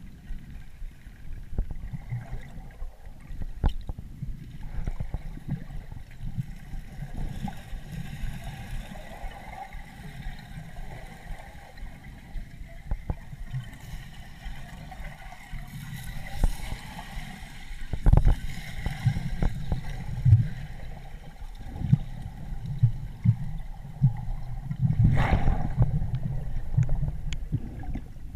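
Muffled underwater sound from a camera held below the surface by a snorkeler: low, irregular sloshing and churning of water around the camera, with scattered clicks and a few louder bumps in the second half.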